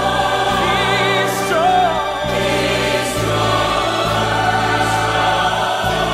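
Background music: a choir singing a slow Christian song with vibrato over sustained instrumental chords.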